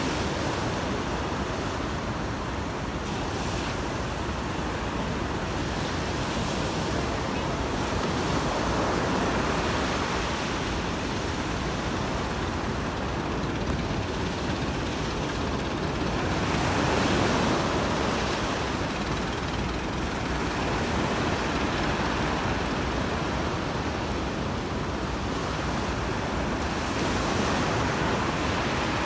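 Ocean surf breaking and washing up a sandy beach, with wind buffeting the microphone. The wash swells louder twice, past the middle and near the end.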